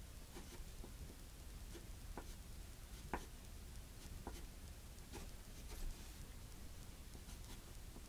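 Faint pencil strokes scratching on paper in short, irregular marks, with a low steady hum underneath.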